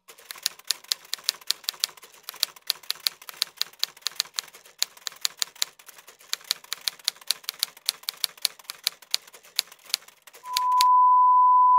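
Typewriter keystroke sound effect, a fast even run of clicks at about five a second. Near the end a loud steady beep at one pitch takes over.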